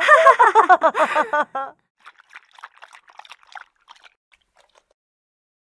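A woman's high laughter, a fast string of 'ha' syllables, breaking off about a second and a half in; after it, only faint wet clicking sounds.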